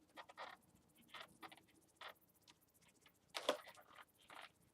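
Pen drawing on an inflated latex balloon: a series of short, faint scratchy strokes, the loudest about three and a half seconds in.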